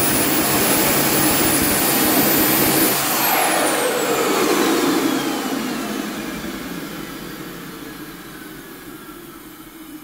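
AMT Pegasus model jet turbine running with a high whine, then spooling down from about three seconds in. Its pitch falls steadily and the noise fades as the turbine winds down.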